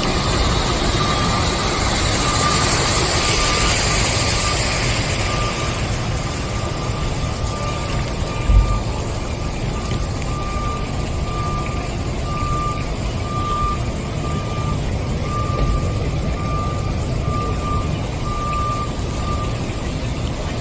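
A vehicle's reversing alarm beeping about once a second over the steady rush of traffic and water on a flooded street, with a single low thump about eight seconds in.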